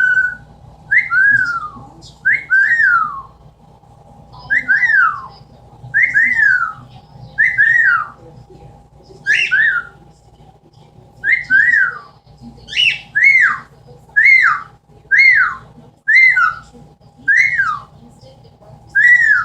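Amazon parrot whistling over and over, about once a second and often in pairs. Each call swoops up and then glides down.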